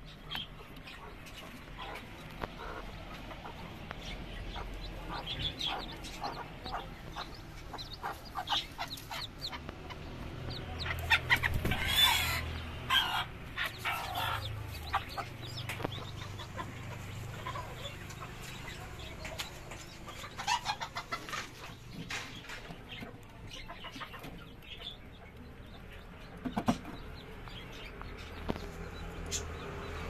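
Chicken clucking in short calls, loudest about eleven to thirteen seconds in.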